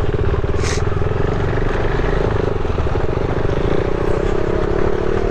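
KTM 390 motorcycle's single-cylinder engine running steadily in low gear at slow speed on a loose gravel track, with a brief sharp clatter about a second in.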